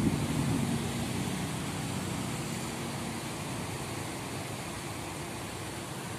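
Steady hum of distant city traffic.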